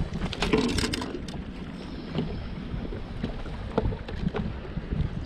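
Wind buffeting the microphone as a low rumble, with sharp clicks and knocks clustered in the first second and a few more scattered later, from a small bass being handled and unhooked on a boat deck.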